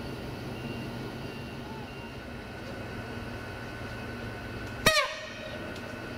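Train running with a steady low engine hum. About five seconds in, a train horn gives one very short, sharp toot that dips slightly in pitch.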